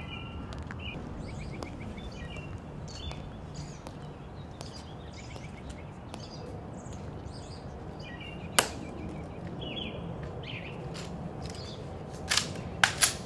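Sharp clicks and snaps from the guards' ceremonial drill: one about two-thirds of the way through, then a quick cluster of three near the end as a rifle is brought up for inspection. Small birds chirp throughout over a steady outdoor background.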